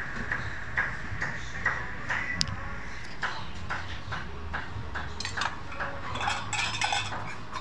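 Metal spoons and ladles clinking against a bowl and small stainless steel pots as a bowl of curry noodles is assembled: a string of light clinks and taps that comes thickest about five to seven seconds in.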